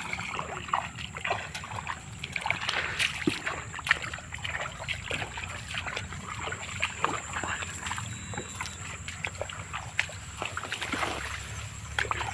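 Irregular small splashes and sloshing of shallow water over a low trickle, with many brief scattered clicks.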